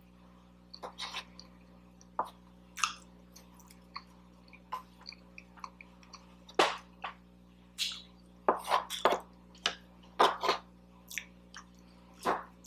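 Close-miked eating: moist chewing and mouth smacks, with short wet clicks scattered throughout and coming more often in the second half, over a steady low hum.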